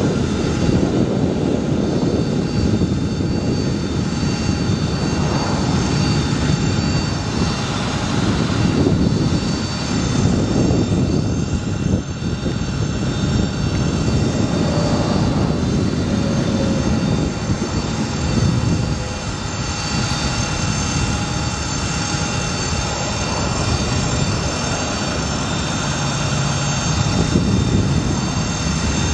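Terex TL38P bucket truck running with its boom being operated: a steady engine drone with a thin, steady high whine over it, typical of the truck-driven hydraulic pump working the boom.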